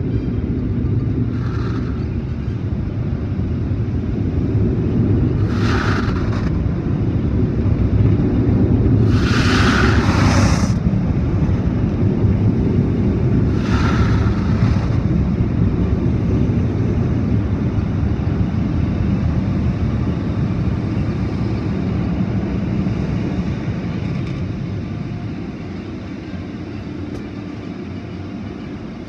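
Automatic car wash heard from inside the car: a steady low rumble of the wash machinery and water on the body, broken by four short hissing bursts in the first half. The rumble eases off somewhat near the end.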